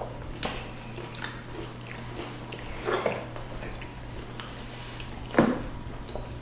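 Close-miked biting and chewing of a fried chicken BLT sandwich: scattered crunches, the loudest about five seconds in, over a faint steady low hum.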